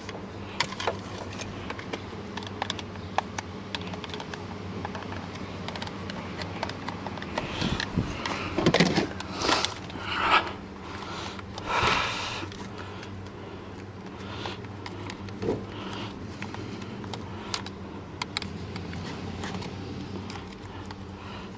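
Hands handling plastic car door lock actuator assemblies and a latch cable: small scattered clicks and scrapes of plastic parts over a steady low hum, with a few louder noises between about 8 and 12 seconds in.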